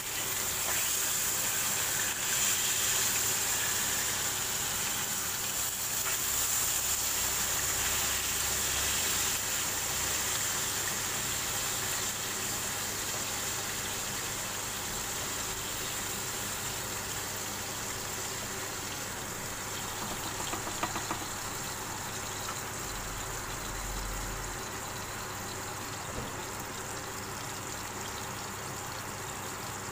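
Salmon fillets sizzling in butter and oil in a nonstick wok, a steady hiss that slowly eases. A few light taps sound about two-thirds of the way through.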